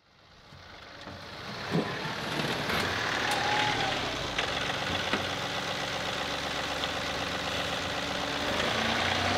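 John Deere 2038R compact tractor's three-cylinder diesel engine running steadily while the tractor digs a trench, fading in over the first couple of seconds, with a few short knocks from the digging equipment.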